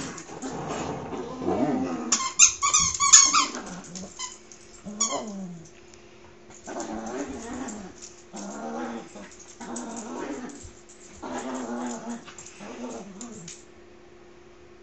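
Dogs play-growling in repeated bouts during a tug-of-war game over a toy, with a burst of high-pitched squealing about two seconds in.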